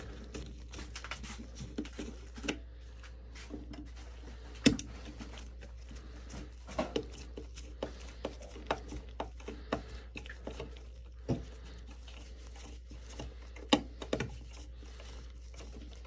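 Scattered clicks and light knocks of gloved hands handling an old round Honeywell T87F thermostat, turning its dial and working its cover off, two of them sharper than the rest. A steady low hum runs underneath.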